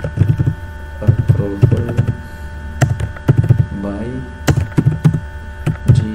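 Typing on a computer keyboard: irregular quick runs of key clicks, each with a low thump, over a steady electrical hum.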